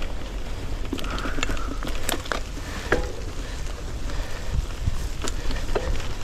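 Mountain bike rolling along a trail strewn with dry leaves and bracken: the tyres crackle over the litter, with scattered sharp clicks and knocks throughout and a low rumble of wind on the microphone.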